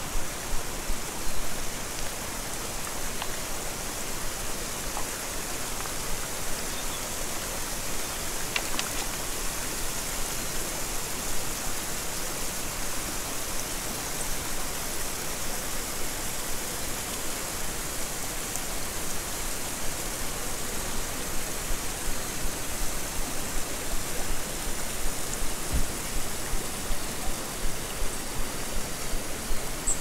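Shallow river running over rocks: a steady rush of flowing water. In the last few seconds soft regular thuds come about twice a second.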